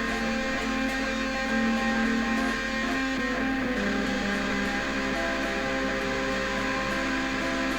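Guitar playing an instrumental passage of a rock song, strummed chords ringing on, with no vocals.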